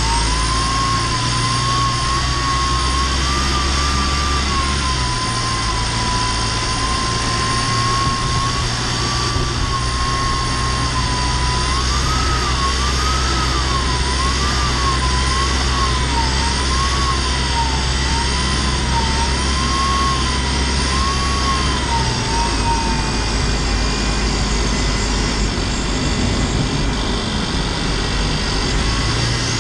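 Cabin sound of an LDV G10 van's petrol engine under way, with a high whistle that wavers up and down in pitch over the engine drone. The owner links the annoying whistle to the turbo. The whistle dies away with a drop in the engine note about three quarters of the way through.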